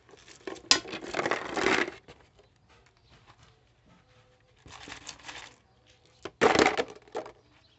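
Small stones poured into a plastic PET bottle pot, clattering against the plastic and each other in three bursts: a long one about a second in, a softer one midway and a short loud one near the end.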